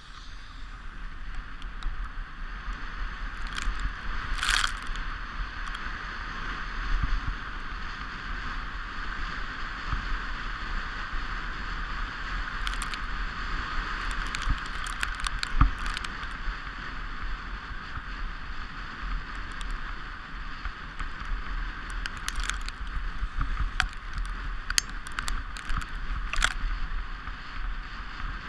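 Toboggan runners hissing steadily over the packed snow of a sledging run, with scattered sharp scrapes and clicks and a constant low rumble.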